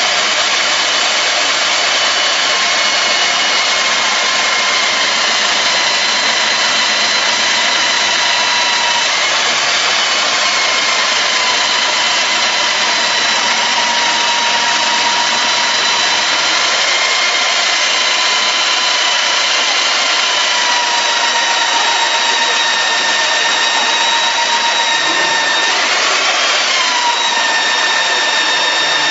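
Electric diamond core drill on a rig stand running steadily with a high motor whine as its diamond core bit cuts into concrete. The pitch sags a little now and then, with a brief rise and fall near the end.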